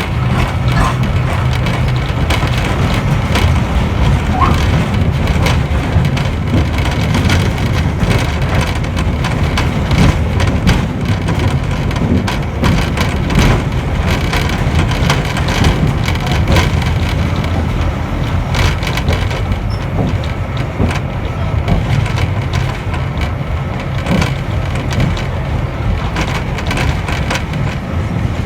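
Iyotetsu Botchan Train, a diesel-powered replica of a small steam train, running on its tram rails: a steady low rumble with constant rattling, creaking and clicking.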